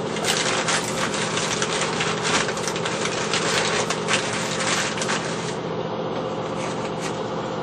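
Rapid scratchy strokes of a hand tool scraping or scrubbing the rusty metal top of a washing machine, easing off about five and a half seconds in, over a steady low hum.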